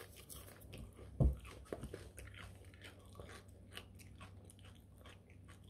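A person chewing dry, crunchy hot chilli chips: a run of faint, crisp crunches, with one louder, deeper thump about a second in.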